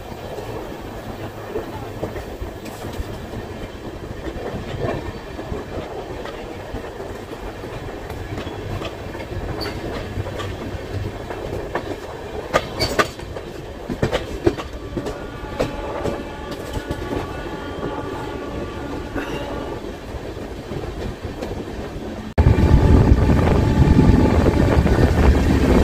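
Indian Railways express train rolling along the track, heard from an open coach door: a steady rumble with wheels clicking over rail joints and points, a quick cluster of clicks about halfway, and a faint high squeal for a few seconds after. About three-quarters through, the rumble turns suddenly much louder and deeper.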